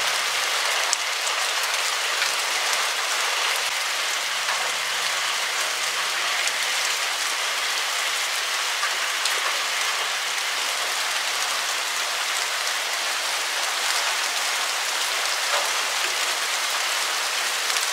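Steady rain falling, an even hiss of many drops that holds at one level throughout.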